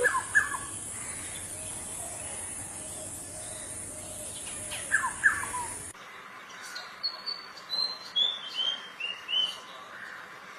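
Calls of two different birds, one after the other. First comes a pair of short notes sliding downward, heard twice about five seconds apart over a faint steady hiss. Then a different bird gives a series of high whistled notes that step down in pitch.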